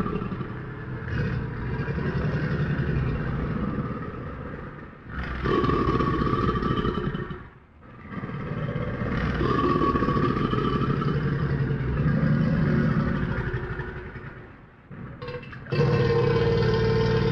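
Crocodile growling: long, deep rumbling bouts, broken by short pauses about five, eight and fifteen seconds in.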